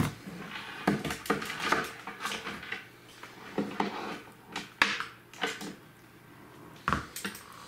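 Handling noise: irregular clicks, knocks and rustling as a subwoofer voice coil is set down on a hard floor among its packaging and other items are moved about.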